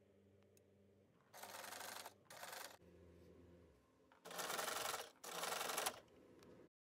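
Electric domestic sewing machine running a straight stitch through voile curtain fabric in four short spurts, each under a second long, with a faint low hum between them.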